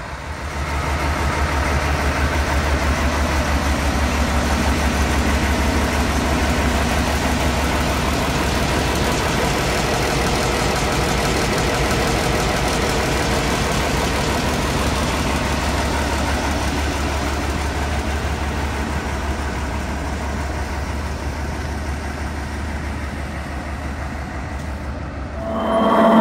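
ZIL-157 truck's petrol inline-six engine idling steadily with an even low rumble, rising in level about a second in.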